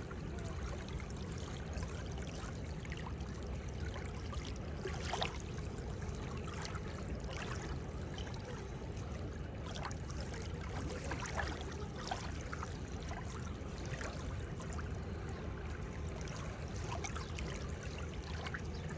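Seawater moving at the shore: a steady rush of water broken by many small splashes and trickles.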